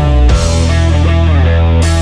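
Rock music with electric guitar and crashing cymbals.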